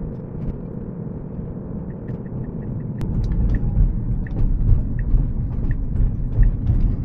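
Tyre and road noise inside a moving Tesla's cabin, a steady low rumble that grows louder and rougher about three seconds in. Faint regular ticks come about every 0.7 seconds from about two seconds in.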